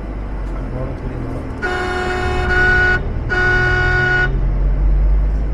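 A vehicle horn sounds twice, two steady single-pitched blasts of about a second each, over the low steady rumble of a moving vehicle.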